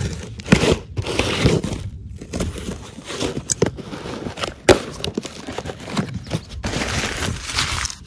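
A cardboard toy box being opened by hand: flaps scraping and tearing loose, with a few sharp clicks. Newspaper packing inside crinkles near the end.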